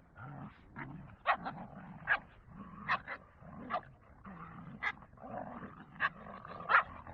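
Dogs play-fighting: low growling rumbles, broken about once a second by short sharp sounds.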